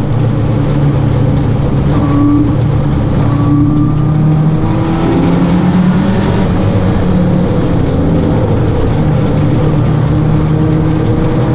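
Red open-cockpit roadster's engine running under way on the road, heard from the driver's seat; the engine note rises and falls a few times as the car changes speed.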